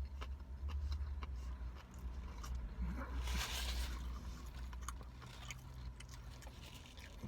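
Close-up eating sounds: a person chewing a chicken sandwich with small wet clicks of the mouth, and a louder rustle about three seconds in, from a bite or the wrapper. A steady low hum runs underneath.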